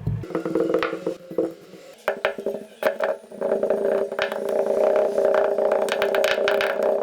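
Kinetic sand being squished and cut by hand, giving repeated crisp crackles and crunches. From about three seconds in, a steady droning tone runs underneath.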